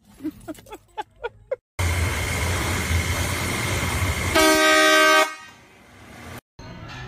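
A pressure washer running with a steady hiss and low hum. About halfway through, a loud air horn blasts for about a second, the loudest sound, and the noise then drops off.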